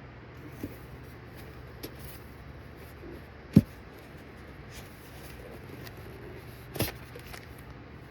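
Handling noises as an item is pried out of a tight-fitting holder in a collector's kit: a few light clicks, a sharp knock about three and a half seconds in and another near the end, over a steady low hum.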